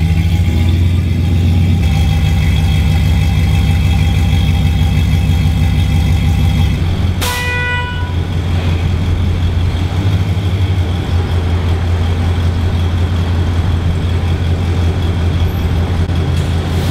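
Jeep engine running steadily at low revs, a loud low hum. About seven seconds in there is a click and a short pitched beep, after which the low running hum carries on a little quieter.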